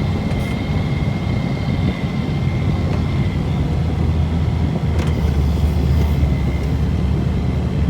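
Engine of a snow-plowing vehicle running steadily while pushing snow, with a thin steady high whine over the low drone. A single sharp knock comes about five seconds in.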